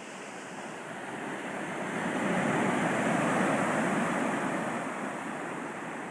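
Ocean surf: a wave washing in, swelling to its loudest about two to four seconds in, then easing off.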